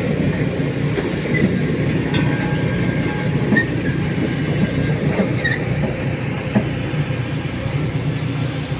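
Heavy construction machinery running: a steady low engine rumble with scattered metallic clicks and short squeaks.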